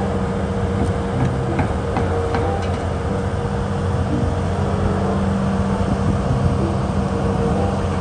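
Large Volvo crawler excavator's diesel engine running steadily as the machine tracks up onto a lowboy trailer, a constant low engine hum.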